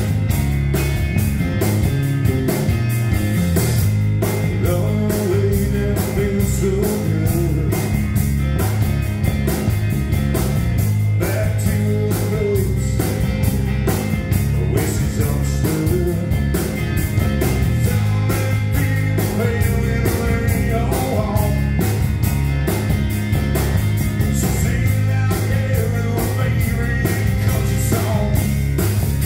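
Live rock trio playing: electric guitar, bass and a drum kit, with a steady, busy drum beat over the guitars.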